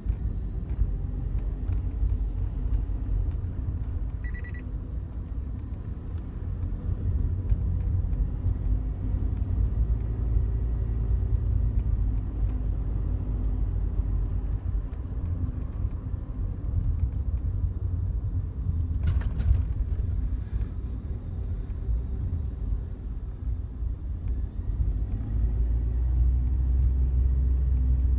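Cabin noise of a Daihatsu Wake kei car on the move: a steady low road and engine rumble, with a few faint ticks and a short clatter about two-thirds of the way in. These are the buzzing rattles from the dashboard in front of the passenger seat that have appeared a month after delivery.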